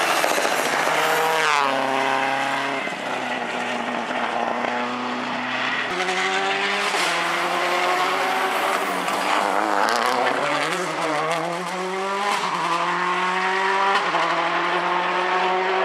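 Subaru Impreza WRC rally cars' turbocharged flat-four engines at full stage pace, one car after another. The revs drop sharply under braking and downshifts, then climb again as each car accelerates hard up through the gears.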